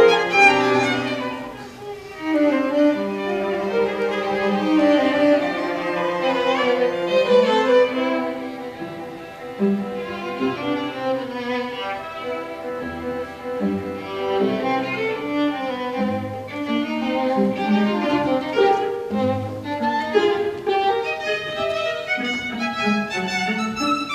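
String quartet of violins, viola and cello playing chamber music live, with long held, overlapping notes that soften briefly about two seconds in and again around nine seconds.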